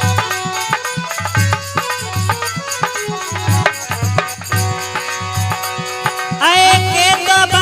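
Instrumental break in a Rajasthani devotional folk song (bhajan): a hand drum keeps a steady beat under a melody, and a little over six seconds in a louder, wavering lead melody comes in.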